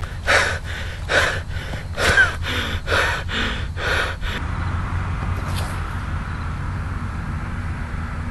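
A person panting hard after running, with loud gasping breaths about one a second that stop about four seconds in. After that only a steady low background rumble remains.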